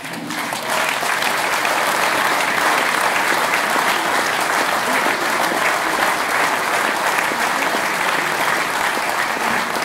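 A hall full of people applauding steadily, the clapping building up within the first second.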